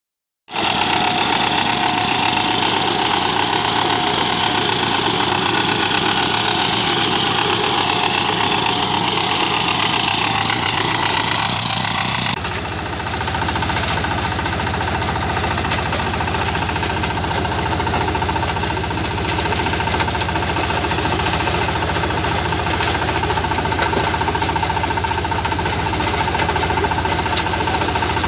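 VST walk-behind power tiller's single-cylinder diesel engine running steadily under load with a knocking clatter while its rotary tines till dry soil. For roughly the first twelve seconds a brighter, steady mechanical noise is heard instead, cutting abruptly to the engine sound.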